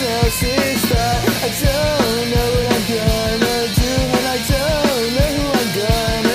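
Instrumental passage of a punk-rock song: a drum kit beats steadily under a lead melody line that bends up and down in pitch.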